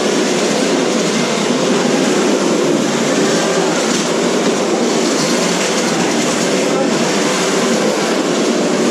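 Several 1/10-scale RC cars running together in a demolition derby heat: a loud, steady mechanical whir of motors, gears and tyres.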